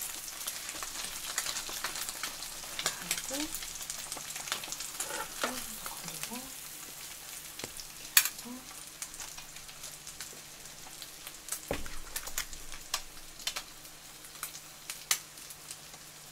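French toast frying in butter in a pan: a steady sizzle with frequent small crackles and pops. A sharp knock comes about eight seconds in and a dull thud near twelve seconds.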